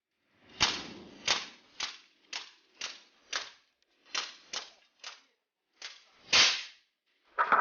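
Huben K1 semi-automatic PCP air rifle firing a rapid string of about a dozen sharp shots, roughly two a second with slightly uneven spacing.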